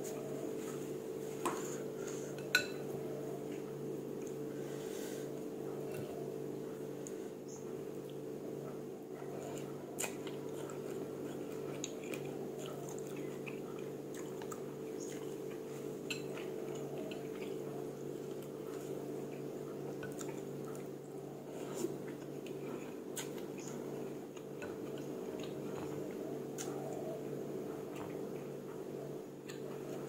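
Quiet eating sounds: chopsticks and a spoon clicking against a ceramic bowl, with chewing and tissue rustles, as scattered small clicks over a steady low hum.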